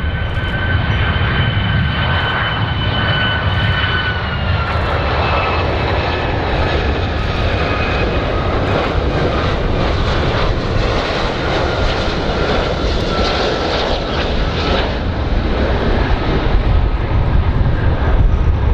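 Boeing 757 jet airliner's engines on landing approach: a steady jet noise over a low rumble, with a high whine that drops slightly in pitch about four seconds in.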